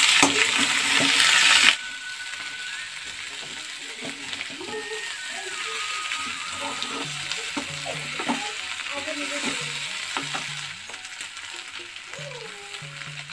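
Potato cubes sizzling loudly in hot oil in a steel kadhai, with a spoon clicking and scraping as they are stirred. The sizzle cuts off suddenly after about two seconds, leaving soft background music with occasional faint clicks of the spoon against the pan.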